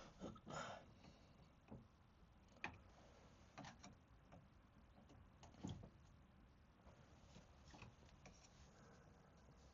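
Near silence broken by a few faint, scattered clicks and knocks of small handling, with no pump running.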